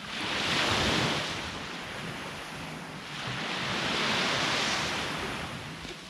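Sea waves breaking and washing up the shore: two surges of surf a few seconds apart, each swelling and then fading.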